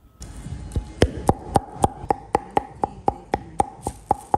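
Knife chopping steadily on a cutting board, about four strokes a second, each stroke with a short ring.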